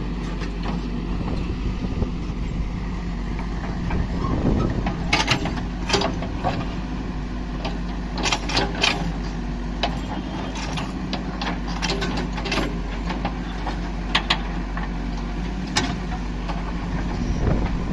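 Heavy diesel vehicle engine running steadily under load, with a scattering of sharp knocks and clatters over it.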